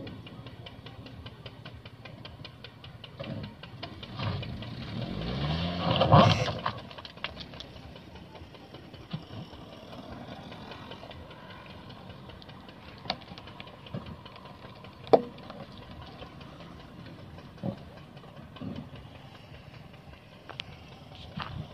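Maruti Swift Dzire's 1.2-litre petrol engine running low as the car moves slowly along a dirt track. About four seconds in, a louder engine sound swells and rises in pitch, then stops abruptly about six and a half seconds in; several sharp clicks follow in the second half.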